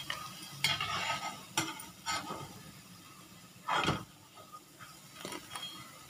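Perforated steel skimmer scraping and knocking against a kadai and plate as fried onion pakoras are lifted out, several strokes with the loudest about four seconds in, over a faint sizzle of pakoras frying in mustard oil.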